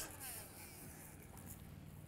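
Very quiet: only a faint, even background hiss, with nothing distinct in it.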